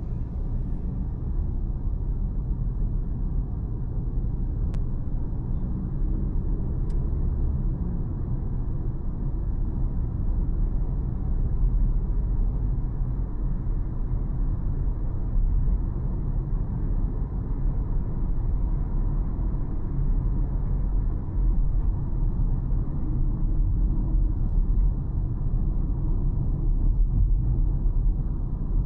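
A car driving along a city road: a steady low rumble of tyres and engine, growing slightly louder about ten seconds in.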